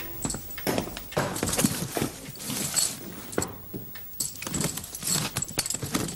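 Footsteps across a wooden floor, then knocks, rattles and light metallic clinks as a suitcase is opened and its contents are rummaged through.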